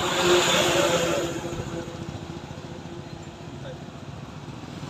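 Road traffic: a vehicle passes, loudest in the first second and then fading, over an engine running steadily.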